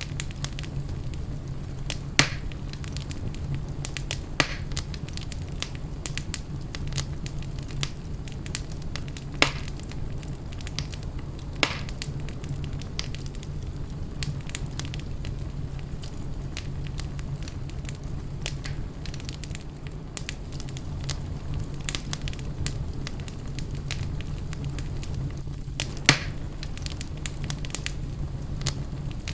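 Wood fire burning in a fireplace: a steady low rumble and hiss with irregular sharp crackles and pops, a few louder snaps standing out.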